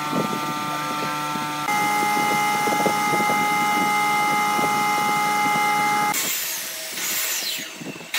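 A workshop power tool's motor running with a steady hum, with light knocks of wood being handled over it. About six seconds in the hum stops and gives way to thin squeaky scraping.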